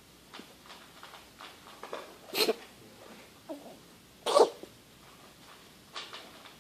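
A pet animal coughing in short, harsh bursts: two loud coughs about two seconds apart, with smaller coughs before, between and after them.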